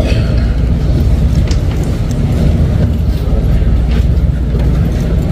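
Loud, steady low rumble with a few faint scattered clicks and taps over it.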